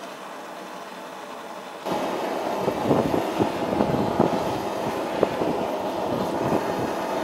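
Propane forge running with a steady roar. About two seconds in it gives way to a wire brush scrubbing forge scale off the hot steel: a louder, continuous harsh scratching with a steady whine beneath it.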